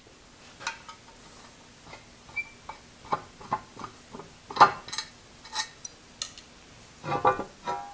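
Short metallic clicks and clinks of a wrench loosening the fastening of a metal lathe's end gear guard while the guard is handled off. The loudest clank comes a little past halfway, and a quick run of clinks follows near the end.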